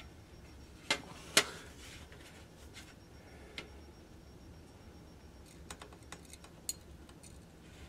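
A few sharp clicks and taps from handling soldering tools at the bench: two louder knocks about a second in, then a scatter of lighter ticks near the end.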